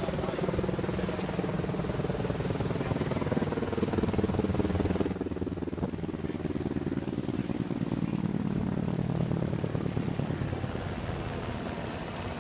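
Engine drone of a passing aircraft, several steady tones sliding slowly down in pitch, with a sudden drop in background hiss about five seconds in.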